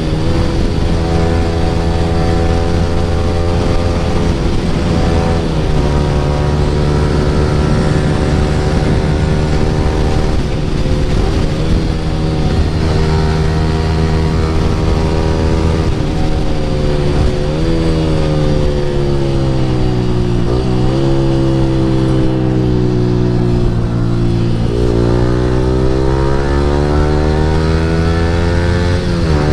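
Yamaha R15 V3's single-cylinder engine running through an Akrapovic R9 full-system exhaust while riding. It holds fairly steady revs with short breaks every few seconds, as at gear changes. Then its pitch falls over several seconds as the bike slows, and climbs again near the end as it accelerates.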